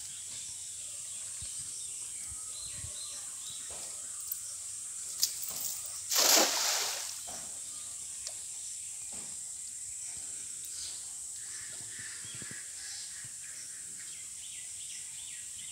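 A cast net hits the pond water with one splash about six seconds in, lasting under a second and the loudest sound here, preceded by a couple of faint knocks. A steady high hiss runs underneath.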